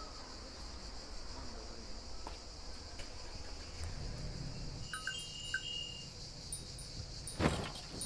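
Summer outdoor ambience dominated by a steady, high insect buzz. About five seconds in, a few short, bright chime-like tones sound. Near the end come two sharp thumps.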